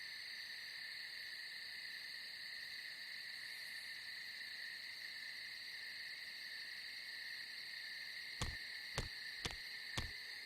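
Steady chirring of night insects as background ambience. Near the end come four short, sharp taps about half a second apart.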